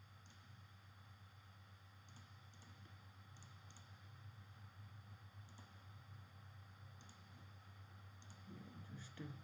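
Near silence with about ten faint, irregularly spaced computer mouse clicks over a steady low hum.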